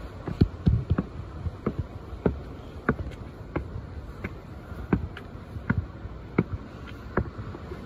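Footsteps climbing a trail staircase: sharp knocks at an even pace, about one step every two-thirds of a second.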